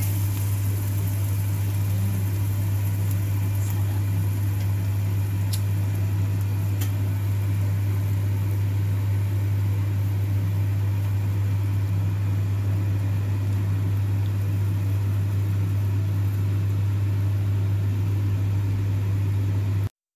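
A steady low hum throughout, with a couple of faint clicks about five and a half and seven seconds in.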